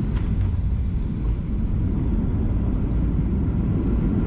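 Steady low rumble of a Boeing 737-700 heard inside its cabin from a window seat, the noise of the engines and airframe as the jet moves along the ground.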